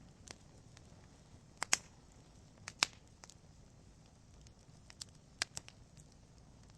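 Wood fire crackling in a fireplace: irregular sharp pops and snaps from the burning logs, the loudest a little under two seconds in and near three seconds in, over a low steady hiss.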